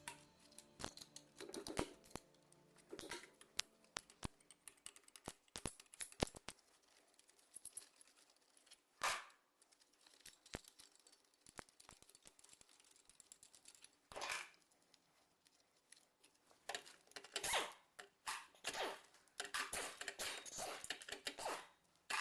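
Hand tools and metal engine parts clicking and clattering during engine disassembly: scattered sharp clicks and taps, with short runs of rapid clicking that come more often toward the end.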